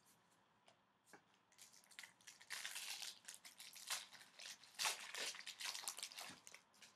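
Foil wrapper of an O-Pee-Chee Platinum hockey card pack being torn open and crinkled by hand. It starts about a second and a half in as rapid crackling bursts that run until just before the end.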